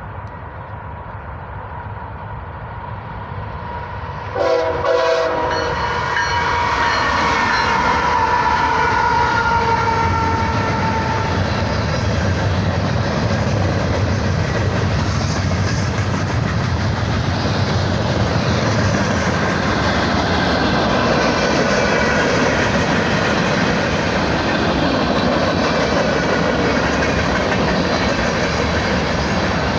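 Union Pacific manifest freight train led by GE ES44 diesel locomotives, approaching and passing. The locomotive horn sounds loudly about four seconds in, its pitch sliding down as the locomotives go by. The freight cars then roll past with steady wheel clatter.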